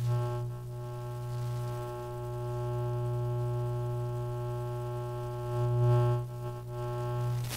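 Electromagnetic emissions from an Asus laptop's upper-left keyboard area, picked up by a bare loudspeaker coil used as an inductive pickup. It is a steady electronic buzz: a strong low hum with a stack of steady higher tones above it, swelling briefly about six seconds in.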